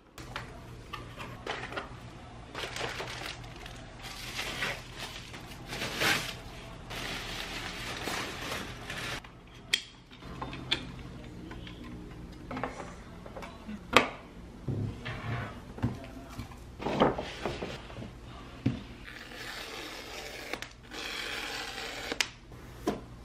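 Handling sounds of unboxing and assembling an HP M27fwa monitor: packaging rustling and rubbing, broken by sharp clicks and knocks of plastic and metal parts as the stand is fitted, a few of them loud.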